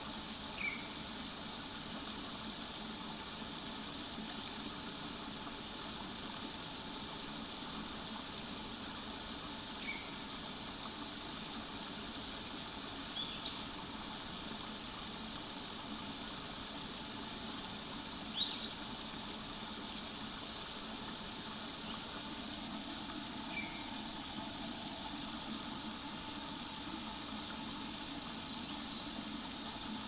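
Creek water babbling over rocks into a pool, a steady hiss, with birds calling now and then: a few single short chirps, and bursts of high twittering about halfway through and again near the end.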